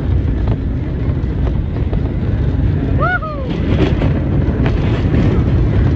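Subway train running along elevated track, heard from an end window: a steady low rumble of wheels on rail with wind on the microphone and a few faint clicks.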